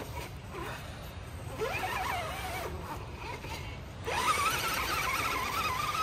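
Axial Bomber RC rock crawler's electric motor and gears whining as it climbs rock. A rising whine about a second and a half in fades away, then a louder, wavering whine starts about four seconds in.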